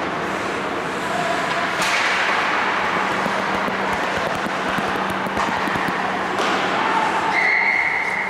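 Ice hockey play on an indoor rink: a steady hiss of skates on the ice over the constant hum of the arena, with scattered sharp clacks of sticks and puck. A steady high tone comes in near the end.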